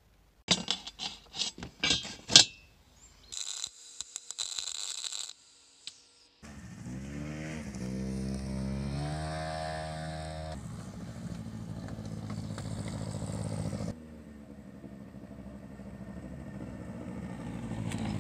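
A handful of sharp knocks, a brief hiss, then an engine that revs up and keeps running steadily, dropping back about two-thirds of the way through and picking up again near the end.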